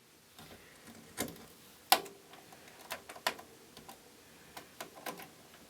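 Scattered small metal and plastic clicks and taps as a motherboard CPU socket's load lever and retention bracket are lifted and handled. There are about six separate clicks, the loudest about two seconds in.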